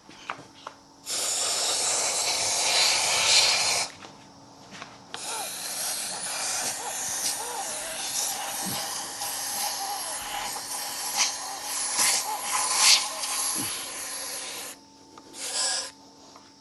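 Compressed air hissing from a blow gun in three bursts, a few seconds long, then about ten seconds, then a brief blast near the end, as air is forced under a foam handlebar grip to slide it onto the bar.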